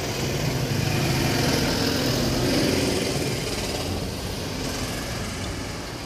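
A motor vehicle's engine runs close by over general road traffic noise. The sound swells over the first few seconds and then eases off.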